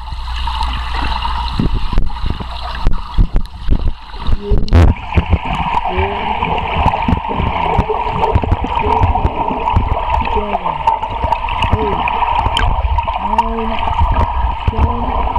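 Underwater pool sound from a submerged camera: water churning and air bubbles rushing as people swing foam water dumbbells through the water, with many short knocks in the first few seconds. From about five seconds in, short muffled sounds that rise and fall in pitch come through the water.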